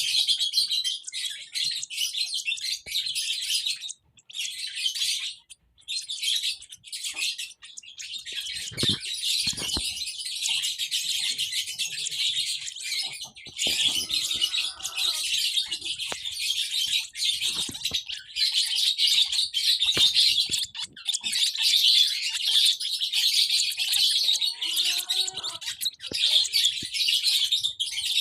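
Lovebirds chirping in fast, dense, high-pitched chatter, with a couple of brief breaks a few seconds in. A few lower calls mix in about fourteen and twenty-five seconds in.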